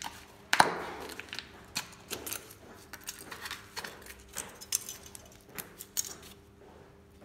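Clicks and light knocks of a small canister of cream of tartar being handled and opened, with one sharp knock about half a second in and scattered lighter ticks after, dying away near the end.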